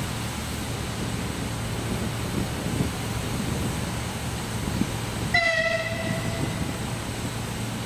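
ES2G Lastochka (Siemens Desiro RUS) electric train at the platform with a steady low rumble, and a short single-tone horn blast about five and a half seconds in that fades out within about a second.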